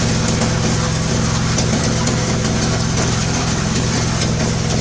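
Engine-driven G-30 chopper shredder running steadily, its engine note even and pulsing, with faint scattered ticks.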